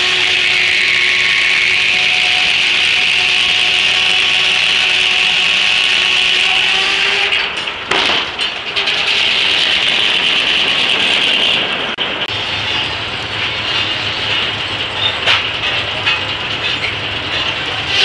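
Large steam-powered circular sawmill blade ripping through a Chinese elm log: a loud, steady, high hiss of the cut with a faint hum from the spinning blade underneath. The noise dips briefly about eight seconds in and settles a little lower after about twelve seconds.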